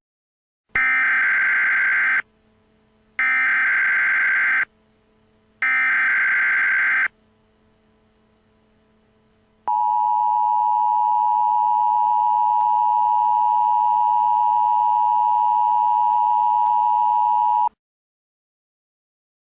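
Emergency Alert System header tones: three short, identical bursts of screeching data tones (the SAME header), then the steady two-tone EAS attention signal held for about eight seconds before it cuts off.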